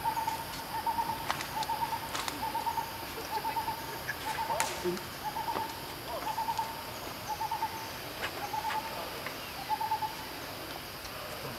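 An animal's repeated call: short, pulsing notes at one steady pitch, about one and a half a second, stopping about ten seconds in, with a few faint clicks among them.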